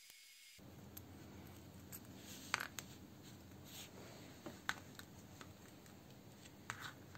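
A few sharp little clicks and taps of small metal parts being handled and set down: a brake master cylinder piston and its seal, worked with a pick. They fall about two and a half seconds in, near the middle, and near the end, over a faint steady hum.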